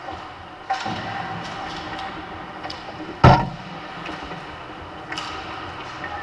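Ice hockey play around the net: skates scraping on the ice and sticks clacking, with one loud, sharp crack a little over three seconds in.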